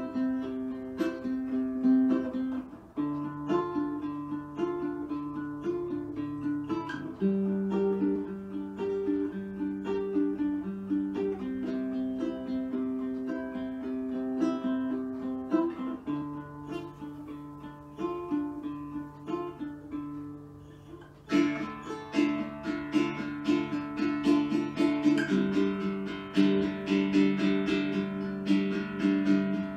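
Background music played on plucked strings, with chords changing every few seconds. The music grows fuller and busier about two-thirds of the way through.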